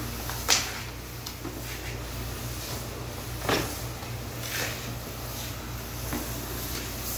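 A long-handled broom working over a wet tiled floor in a few short, sharp strokes, the loudest about half a second in and another about three and a half seconds in, over a steady low hum.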